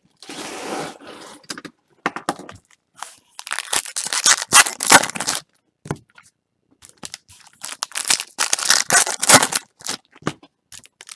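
Foil trading-card pack wrappers being torn open and crinkled, in several bursts of rustling and crackling: a longer tear at the start, then two clusters of crinkling separated by short pauses.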